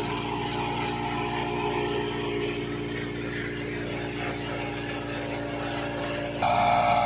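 Tractor-driven wheat thresher running steadily: a continuous machine drone with several steady tones, together with the tractor engine driving it. It gets louder about six seconds in.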